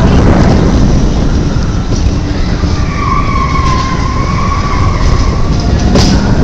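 Test Track ride vehicle running along its track with a loud, steady rumble, joined about three seconds in by a wavering high tone lasting about two seconds.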